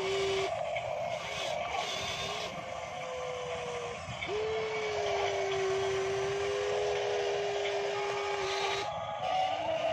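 Radio-controlled model excavator working, its motor giving a steady whine over a rough mechanical whirr as the arm scoops and lifts a bucket of mud. The whine breaks off and restarts about half a second in and again around four seconds, and stops shortly before the end.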